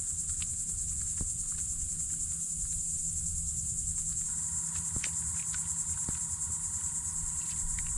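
Steady, high-pitched insect buzzing from the mangroves, with a low rumble beneath and a few faint clicks. A faint steady tone joins about halfway through.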